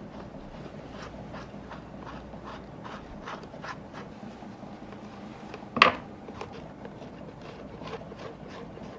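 Hand work on a shoe: short rubbing or scraping strokes repeated about three times a second, with one sharp knock about six seconds in.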